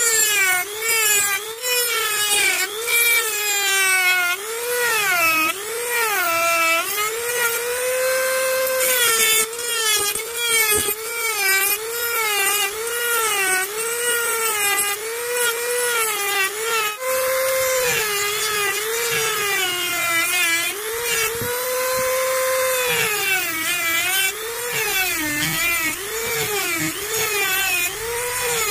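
Handheld mini grinder (rotary tool) running as it grinds into a coconut shell, its whine wavering up and down in pitch about once a second, with scattered sharp ticks from the bit on the shell.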